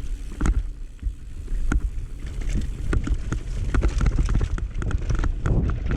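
A mountain bike descending a rough downhill trail: wind rumbling on the camera microphone, with a fast run of sharp rattles and knocks from the bike over the terrain that gets denser after a couple of seconds.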